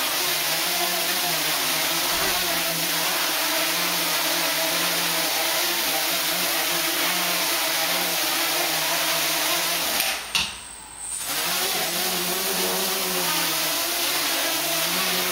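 Home-built quadcopter's four motors and propellers running, a steady buzz whose pitch wavers constantly as the flight controller keeps correcting. The owner says the control is still way too sensitive. About ten seconds in the sound drops out sharply for about a second, then picks up again.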